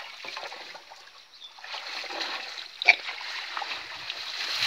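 Shallow water splashing and sloshing as men wade and kick water beside a fishing net, with one sharp, louder splash about three seconds in.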